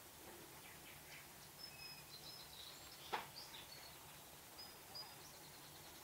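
Faint outdoor background with short, thin, high-pitched bird calls: a few brief whistles and chirps scattered through, and a single sharp click about three seconds in.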